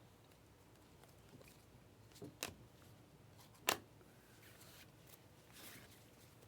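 Trading cards being handled: a few sharp clicks near the middle, then soft sliding rustles as cards are moved through the hand.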